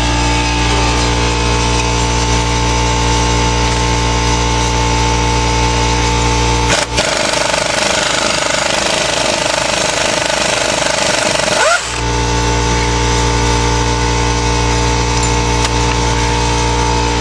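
A power tool or machine running steadily with a constant hum. For about five seconds in the middle it gives way to a harsher, hissing tool noise that ends in a short rising whine.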